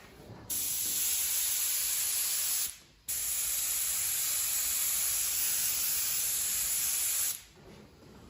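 Airbrush spraying paint in two long hissing bursts, with a brief stop between them as the trigger is let off.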